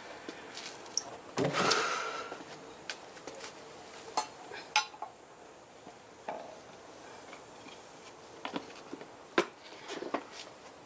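Metal tyre levers clinking and scraping against a motorcycle wheel rim while a tyre is fitted by hand: a longer scrape about a second and a half in, then scattered sharp clinks.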